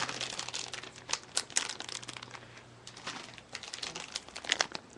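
Plastic bag of soft plastic fishing baits crinkling as it is handled, with irregular crackles and a louder burst of crinkling near the end.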